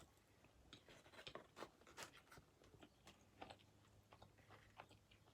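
Faint chewing of hot thin-crust pizza: a scatter of short, soft mouth clicks, a few a second.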